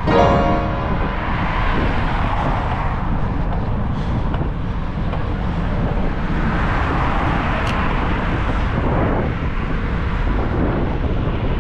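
Road traffic heard from a moving bicycle, with vehicles swelling past twice, about two seconds in and again about seven seconds in, over a steady low rumble of wind on the microphone.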